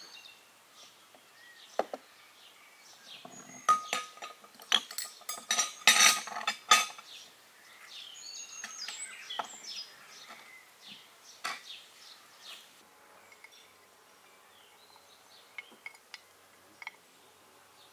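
Glass bowl and utensils clinking and tapping against each other, a quick run of clinks loudest about six seconds in, with brief ringing from the glass; then rustling of a packet and a few light taps near the end.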